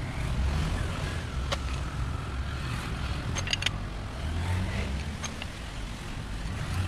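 Scattered metallic clicks and clinks of a wrench undoing the crankcase bolts on a Yamaha 15 hp outboard powerhead, with a quick cluster of clicks about halfway through, over a steady low rumble.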